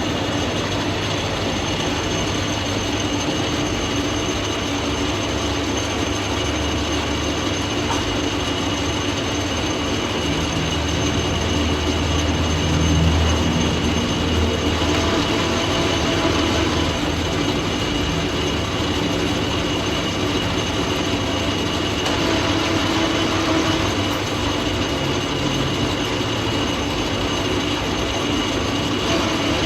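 Metal lathe running steadily, a constant machine hum with a few steady tones over a hiss; the low hum swells for a few seconds around the middle.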